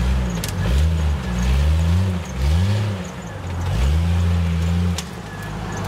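Lifted Jeep Cherokee's engine revving up and back down about four times under load as it crawls over logs and dirt, the last rev held for about a second before it drops back near the end.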